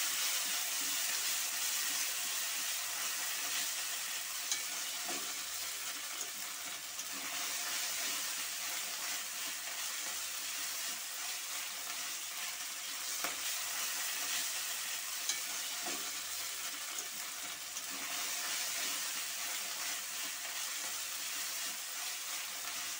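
Onion and ground garlic, ginger and cumin paste sizzling steadily in hot oil in a metal kadai, stirred with a metal spatula, with a few sharp clicks of the spatula against the pan. The spice paste is being lightly fried.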